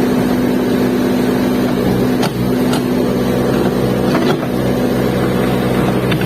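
Backhoe loader's diesel engine running at a steady speed, with a few short knocks over it.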